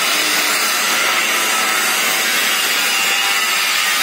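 Gas welding torch flame hissing steadily as it heats a steel box section for brazing.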